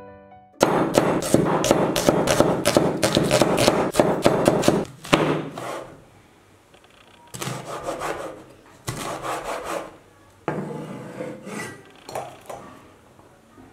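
A cleaver cutting red bell pepper on a wooden cutting board. A quick run of blade strikes lasts about four seconds, then shorter bursts of slicing come with pauses between them.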